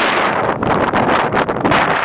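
Strong gusty storm wind buffeting the microphone: a loud, unsteady rushing noise.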